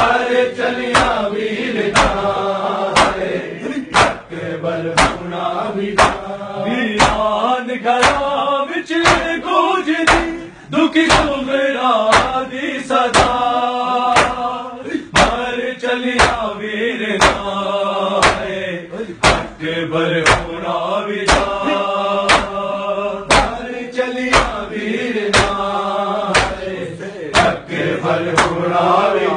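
A group of men chants a Shia noha lament in unison while beating their chests in matam. Sharp hand-on-chest slaps land in time with the chant, about one a second.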